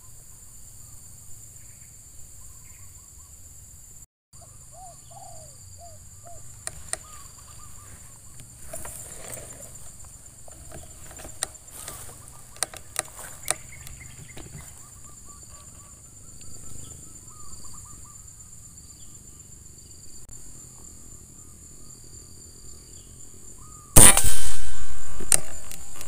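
Steady insect drone with faint scattered bird calls. About two seconds before the end comes a single loud shot from a scoped hunting rifle, ringing off over a second or two; the shot downs a spotted dove.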